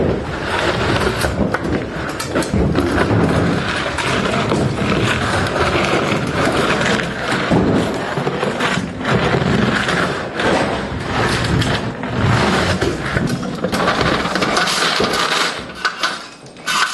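Dense, continuous clatter of knocks, thuds and scrapes from demolition and salvage work on a building, dropping off briefly near the end.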